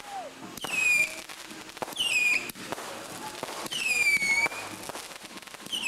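Fireworks going off in quick succession. Four shrill whistles, each dropping slightly in pitch and lasting about half a second, come roughly every second and a half, with sharp cracks and pops between them.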